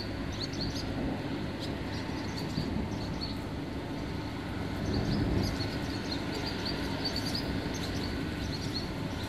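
Steady wind-and-rain noise of a thunderstorm, with small birds chirping over it many times, short and high. A low rumble swells briefly about five seconds in.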